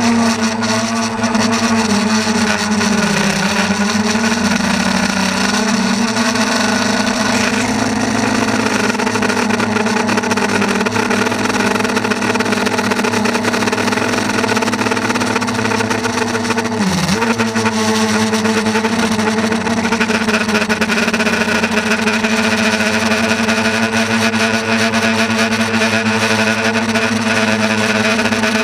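A motor running steadily with a constant hum, its pitch dipping briefly about three seconds in and dropping sharply and recovering at about seventeen seconds.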